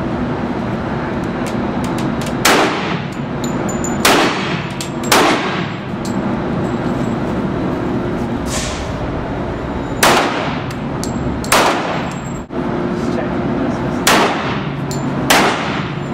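Handgun shots fired in an indoor range, about eight sharp reports spaced unevenly one to four seconds apart, each trailing off in a short reverberation.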